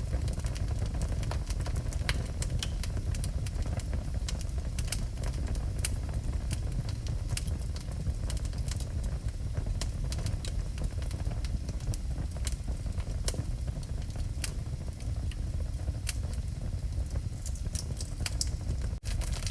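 Wood fire burning in a fireplace: a steady low rumble of flame with scattered sharp crackles and pops. The sound drops out for an instant near the end.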